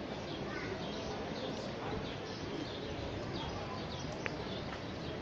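Outdoor city ambience picked up by a phone's built-in microphone: a steady background hum with faint distant voices and scattered small bird chirps. There is a single sharp click about four seconds in.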